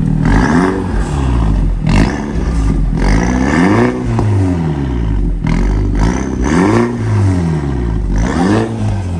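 Mini Cooper John Cooper Works turbocharged four-cylinder revved in place through its open valved exhaust. The revs rise and fall in about five blips, with sharp pops and crackles from the exhaust as the revs drop.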